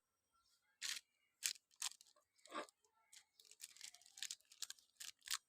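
Faint handling noise: a dozen or so short, uneven clicks and rustles as the small parts of a lavalier microphone kit are handled.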